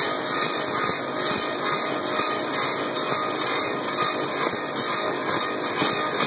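Belt-driven Klotz axe-handle lathe cutting a wooden handle blank to shape, its cutters shaving off chips with a steady machine noise.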